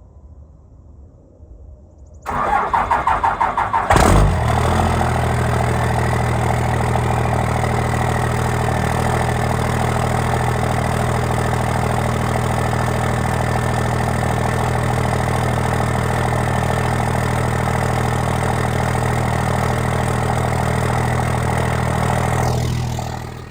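Diesel engine cold-started: the starter cranks in rapid pulses for under two seconds, the engine catches with a loud burst and settles into a steady idle, which drops away near the end.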